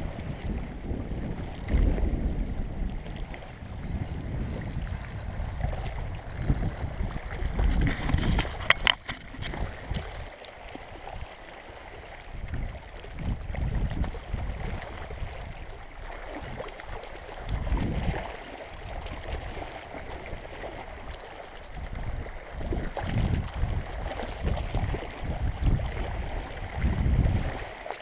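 Wind buffeting the microphone in uneven gusts, with small waves lapping on a pebble shore. There is a brief sharp click about nine seconds in.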